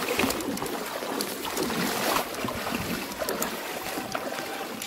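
Water sloshing and splashing around legs wading through knee-deep floodwater, with an irregular swish and scattered light splashes.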